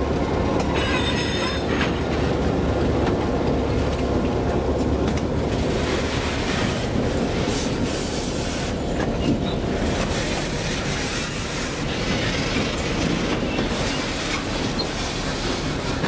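Train rolling slowly over rough, poorly maintained track: steady diesel locomotive rumble with wheels clattering over rail joints and a brief high wheel squeal about a second in.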